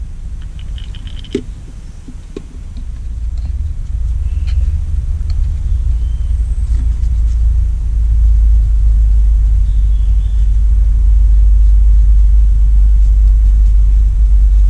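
A low, noisy rumble that builds over the first few seconds and then holds steady and loud, with a few faint high chirps over it.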